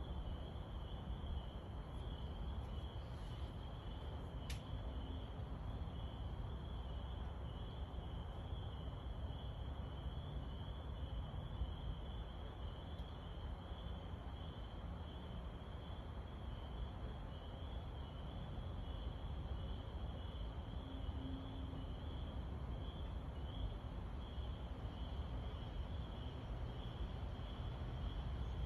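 A steady night chorus of small calling animals, a high pitched call repeating evenly about twice a second, over a low steady rumble.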